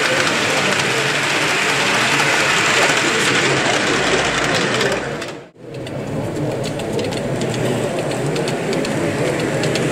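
Model trains running on layout track: a steady whirr and clatter of small motors and wheels. It cuts out abruptly about halfway through, then starts again with quick ticking as wheels run over the rails.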